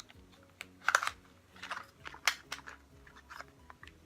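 A small cardboard product box being handled and opened by hand: irregular short clicks and rustles, the loudest about a second in and again a little after two seconds.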